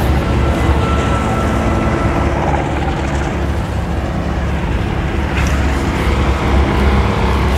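Steady low engine drone from boats on the water, with a faint high tone over it for the first two seconds.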